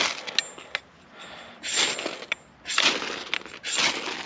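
Spine of a Condor Lobo 1075 high-carbon steel machete scraped hard down a ferrocerium rod, about three strokes roughly a second apart, each one throwing sparks. This tests whether the blade spine has an edge sharp enough to strike a ferro rod.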